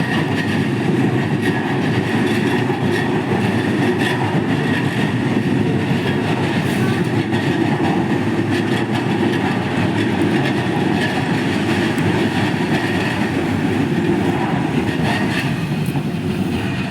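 Ome Line electric train running close by: a loud, steady rumble of wheels on rail, with scattered clicks over the rail joints.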